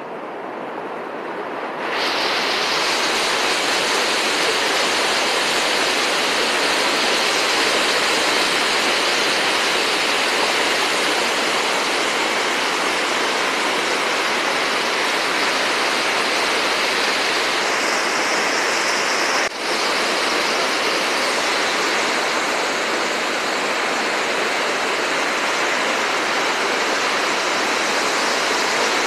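Niagara Falls: a steady, loud rush of falling water, getting louder about two seconds in, with one momentary dip about two-thirds through.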